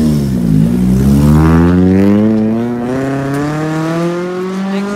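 Level crossing barrier mechanism's motor whining as the barriers lift. Its pitch dips briefly just after the start, then climbs slowly and steadily, while a low rumble fades out about two seconds in.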